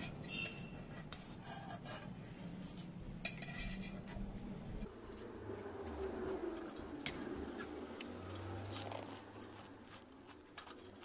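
A spoon clinking and scraping against the plates and bowl as pani puri shells are filled and dipped in the spiced water, in a string of short separate clicks and clinks.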